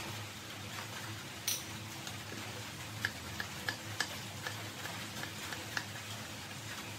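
Kitchen knife cutting firm breadfruit flesh on a wooden cutting board: short, sharp knocks of the blade on the board, one louder knock about a second and a half in, then a run of them about two a second from about three seconds in, over a steady low hum.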